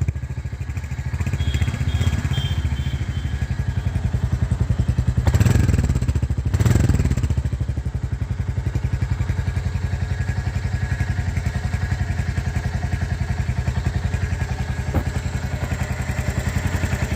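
Royal Enfield Hunter 350's single-cylinder 349cc engine idling with a steady, even thump, briefly louder twice about five and seven seconds in.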